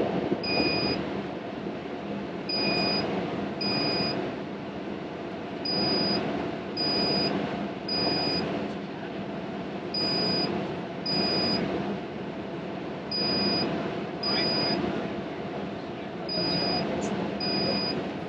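Repeated electronic beeps, each a short steady high tone, sounding in pairs or threes about a second apart with a pause of a second or two between groups, over a steady background hum.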